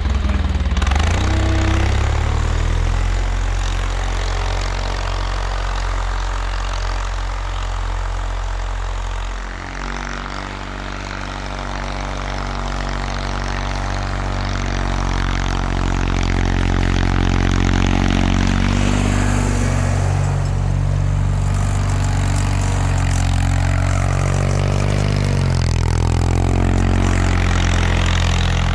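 1979 Bolens HT-23 garden tractor's 23 hp Kohler K582 opposed twin-cylinder engine running steadily while plowing snow. Its engine speed shifts several times, dipping briefly about a third of the way in and changing pitch again near the end.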